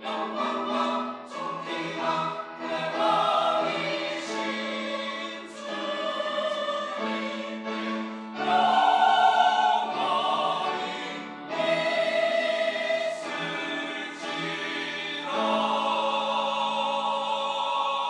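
Mixed church choir of men and women singing an anthem in loud phrases. It closes on a chord held for a few seconds and released near the end.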